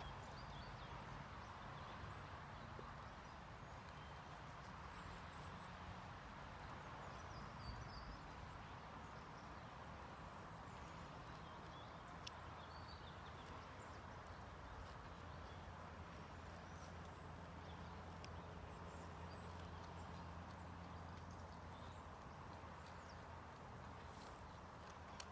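Mouflon grazing, quietly tearing and chewing grass.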